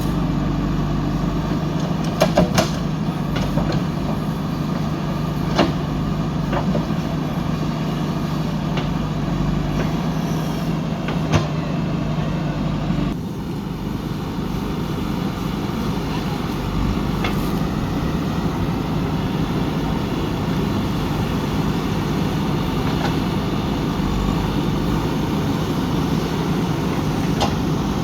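JCB 3DX backhoe loader's diesel engine running steadily, with a few sharp knocks, the loudest a quick cluster a couple of seconds in. Around halfway the engine note eases slightly.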